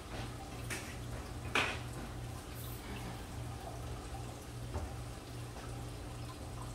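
Food frying in a skillet on a gas stove, a faint steady sizzle over a low hum. A few brief sharp clatters come through, the loudest about a second and a half in.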